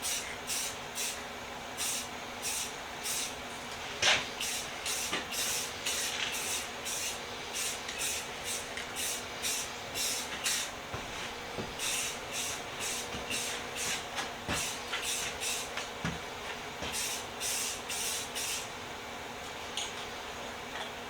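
Spray paint hissing out in many short bursts, in runs of quick passes with pauses between, as a first coat goes on. There is a sharp knock about four seconds in.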